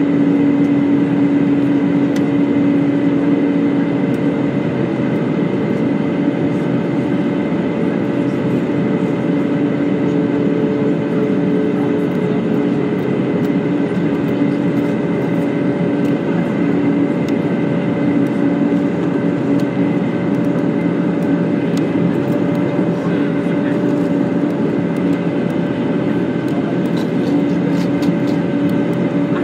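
Airbus A320 cabin noise during descent: the steady drone of the engines and the air rushing past the fuselage, with a few steady humming tones held over it.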